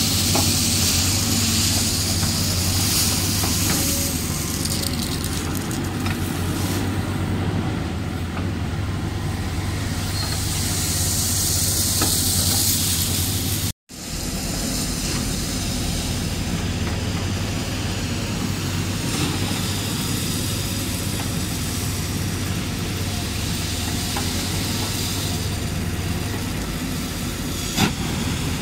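Caterpillar backhoe loader's diesel engine running steadily as its bucket digs into a pile of crushed stone, with a hiss that swells and fades. The sound drops out for an instant about halfway through, and a sharp click comes near the end.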